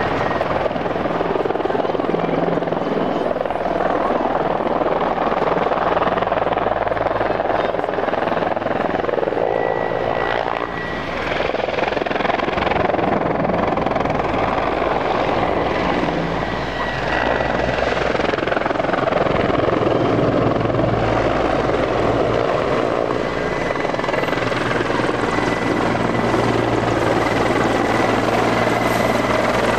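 Mil Mi-24P helicopter in low flight: heavy main-rotor noise over the steady high whine of its turboshaft engines. The sound dips briefly about ten seconds in, then grows louder again as the helicopter comes in close.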